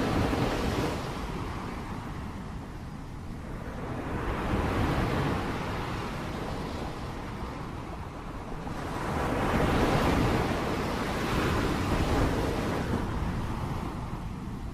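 Heavy rain: a dense rushing noise that swells and eases every few seconds.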